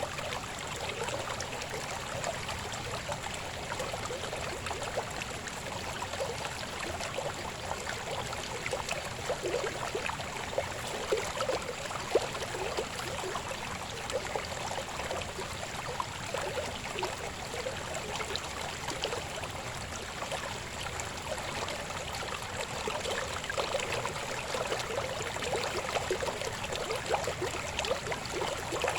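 Shallow river babbling and gurgling over rocks, a steady flow of water with small splashes flickering through it.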